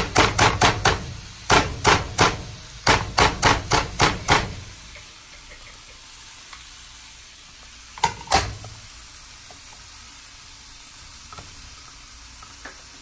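Sliced garlic is knocked out of a bowl into a skillet of frying corn and black beans. A quick run of sharp knocks lasts about four seconds, with two more knocks a few seconds later. Between and after them the pan sizzles faintly and steadily.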